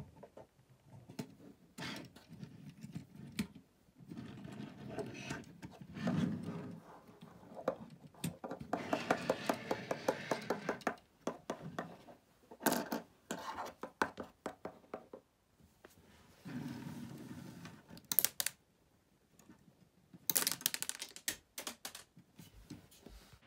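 Lego plastic bricks and pieces being handled on a tabletop: scattered clicks and knocks of plastic parts, with a quick run of rattling clicks about nine seconds in.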